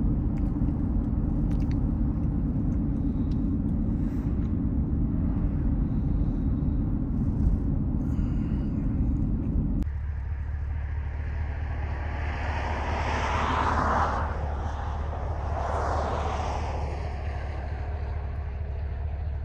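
Steady road and engine rumble inside a moving vehicle. About ten seconds in it cuts to a quieter outdoor sound with a low steady hum, and two swells of noise rise and fall as vehicles pass.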